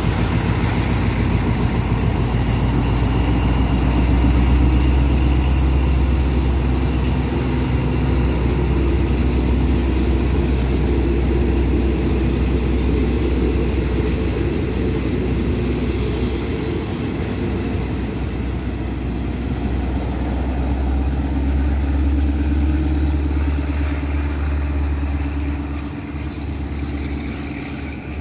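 Diesel-hauled passenger train pulling out: a steady low engine drone under the noise of the coaches rolling past on the rails. It slowly fades over the last several seconds as the train draws away.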